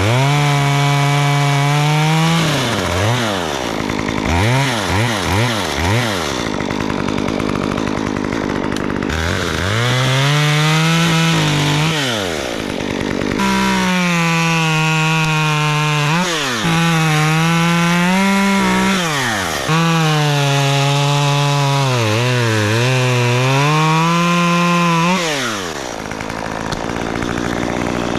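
Chainsaw cutting wood, held at full throttle in long stretches, with a handful of quick throttle blips a few seconds in. The pitch sags in places as the chain loads up in the cut. About 25 seconds in it drops back to a lower, steadier idle.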